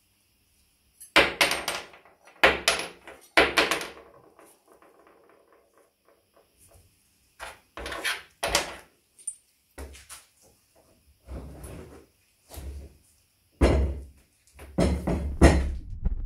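Knocks and clunks of a cannon's rusty iron fittings, wooden carriage and barrel being handled during disassembly. A quick run of about six sharp knocks comes in the first few seconds, then more scattered knocks and clunks, the loudest near the end.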